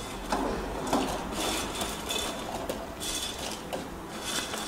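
Dry Maggi instant noodle cakes tipped from a steel bowl into a steel pot of hot water: rustling and scraping, with several irregular knocks of noodles and bowl against the metal.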